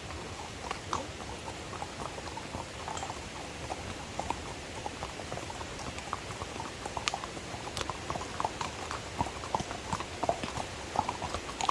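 Horses' hooves clopping on a trail, a steady run of irregular, uneven knocks over a constant background hiss.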